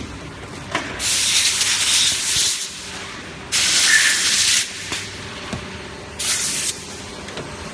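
Three hissing blasts of pressurized air at a liquid silicone rubber molding machine. The first two last well over a second each and the last is short, with a few light mechanical clicks between them.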